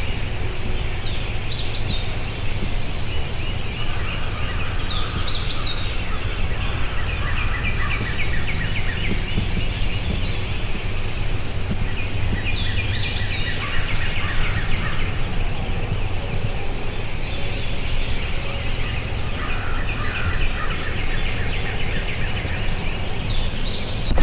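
Wild turkey gobblers gobbling in several rattling bouts at daybreak, with songbirds chirping and a steady low rumble underneath.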